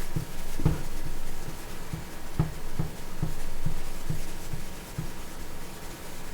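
Cloth wiping the new LCD screen of a resin 3D printer with denatured alcohol: repeated rubbing strokes with short low knocks, about two to three a second, stopping about five seconds in.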